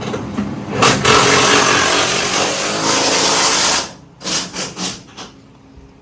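Impact wrench running for about three seconds, then four short trigger blips, typical of running suspension bolts down and snugging them.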